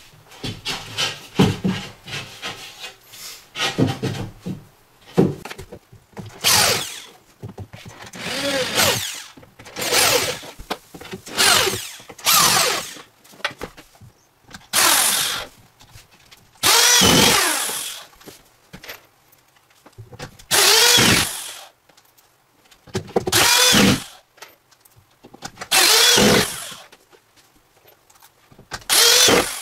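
Scraping strokes in the first few seconds as a knife scores the cement backer board, then a drill driving screws into the board: about a dozen short runs, each one spinning up and winding down, with short pauses between screws.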